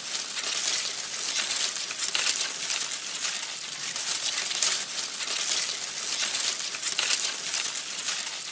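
Leaves and twigs rustling and crackling as a person pushes through dense undergrowth, in an irregular run of brushing sounds.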